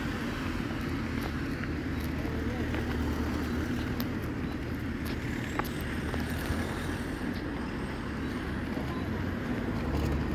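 Steady road-traffic rumble from cars passing, with faint voices of people.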